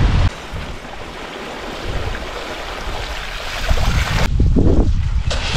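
Mountain bike tyres splashing through water and mud on a flooded track, under wind rushing over the microphone. The noise drops suddenly a moment in and grows louder and deeper again in the second half.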